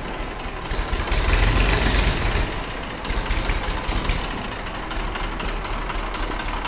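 Massey Ferguson 1035 DI tractor's three-cylinder diesel engine running under way with a heavy, knocking diesel rumble, getting louder for a second or so about a second in, then settling back to a steady run.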